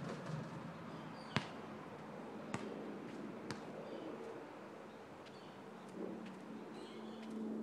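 A basketball bouncing on the asphalt court after a free throw drops through the hoop: three bounces, each a little sooner after the last, the first the loudest. Faint birdsong and a steady low hum sit behind them.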